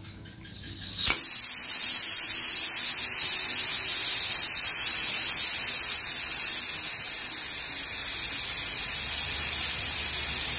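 Compressed air hissing steadily out of a PCP airgun's air cylinder as its valve is held pressed to drain the remaining air, starting suddenly about a second in.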